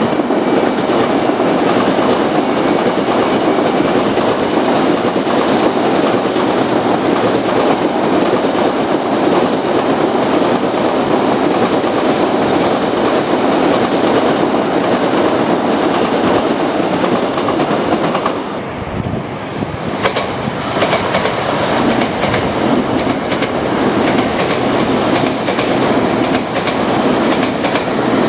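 Tokaido Shinkansen 700 series train running past: a steady rumble of wheels on rail that dips briefly about two-thirds of the way through.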